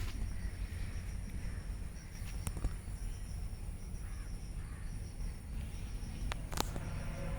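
Rural outdoor ambience: crows cawing over a steady high insect drone, with a constant low rumble and a few sharp clicks.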